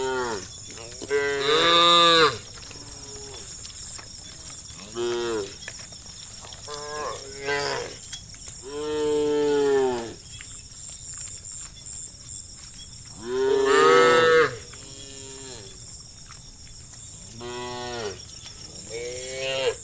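A herd of cows mooing, one call after another, some short and one long near the middle; the loudest calls come about two seconds in and about fourteen seconds in.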